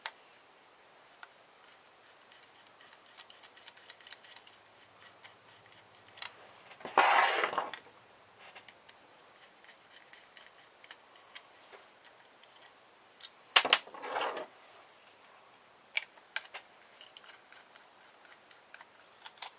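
Small metal parts and a screwdriver clicking and tapping as an old corroded plug is taken apart, with a short rasp about seven seconds in and a sharper cluster of clicks and another brief rasp about two-thirds of the way through.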